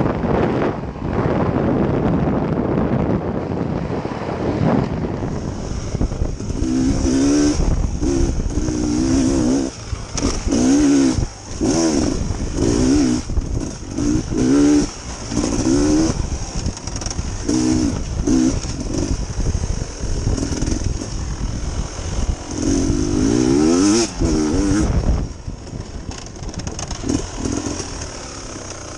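Dirt bike engine being ridden hard, revving up and dropping back over and over as the rider works the throttle and gears. Wind buffets the microphone for the first few seconds.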